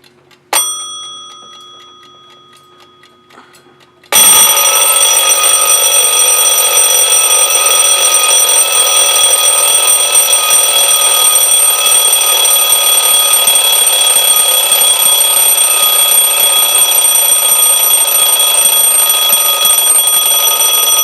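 Mechanical wind-up alarm clock (Bradley, West German): faint ticking and one bell strike that rings out about half a second in, then about four seconds in the alarm goes off, the hammer ringing the bell loudly and continuously.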